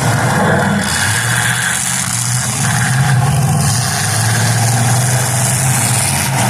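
Demolition derby cars' engines running and revving, their pitch rising and falling, over a steady loud hiss.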